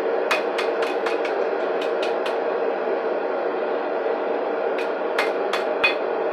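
Hand hammer striking a red-hot steel scythe blade on an anvil: a quick run of about nine blows in the first two and a half seconds and about five more near the end, over a steady rushing noise.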